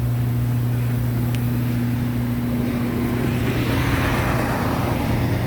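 Heidelberg Eurobind 1300D PUR perfect binder running, with a steady low electrical hum. A rushing hiss swells in about two-thirds of the way through.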